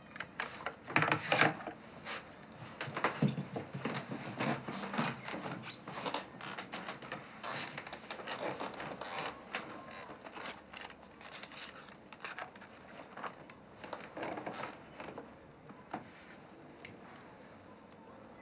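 Small objects being handled at close range: a string of clicks, taps and rustles, loudest in the first two seconds and thinning out toward the end.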